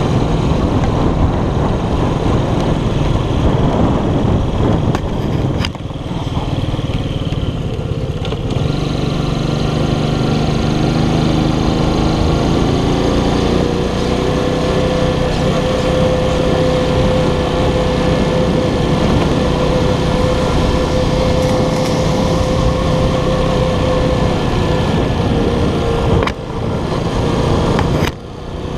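Keller Crono 110 moped's small single-cylinder four-stroke engine running under way, heard onboard with heavy wind noise on the camera. From about halfway a steady engine tone settles in as it holds speed, and the sound dips briefly three times.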